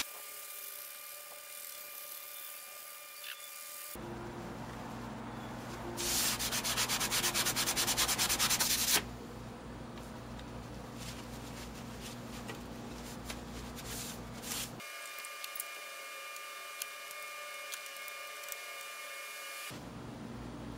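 Abrasive pad scrubbed back and forth over a flat steel spatula blade. The rapid rubbing strokes are loudest for about three seconds in the middle, and quieter scuffing comes in short takes that change abruptly.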